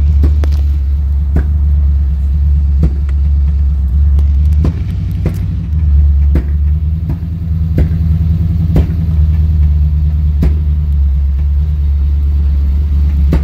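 Chevrolet Camaro Z28 V8 running at idle through a loud aftermarket muffler exhaust: a steady, deep low rumble, broken by a sharp pop every second or two.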